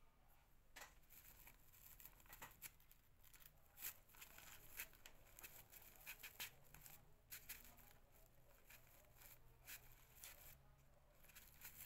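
Faint rustling and light clicks of hands handling and pressing artificial flowers on a tiara, with a slightly louder tap about four seconds in.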